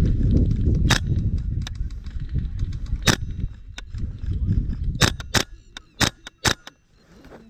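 Airsoft guns firing single sharp shots, about six of them, spaced a second or two apart at first and then in quick succession near the end, with fainter shots between. Heavy rustling and movement noise fills the first half and fades out.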